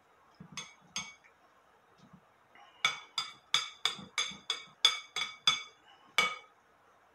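A spoon clinking against the side of a glass mixing bowl as guacamole is scraped down from the sides, each strike ringing briefly. Two clinks come in the first second, then a quick run of about a dozen at about four a second, and one last clink near the end.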